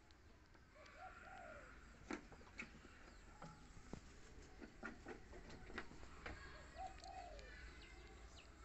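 A dove cooing twice in the background: a short run of soft, rising-and-falling notes about a second in and again near seven seconds in. Scattered faint clicks and smacks sound over otherwise near silence.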